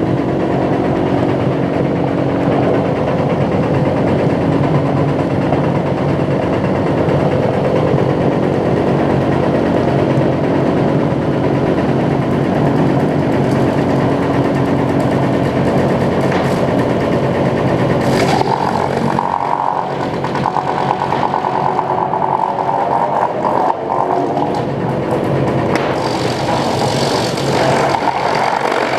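Sawmill machinery running loud and steady with a constant hum. About two-thirds of the way in, a higher whine with a fast rattle joins in, fades and returns near the end.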